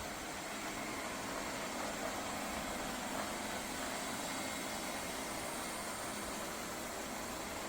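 Lefant M210 Pro robot vacuum running, a steady, even hiss of its suction fan and brushes.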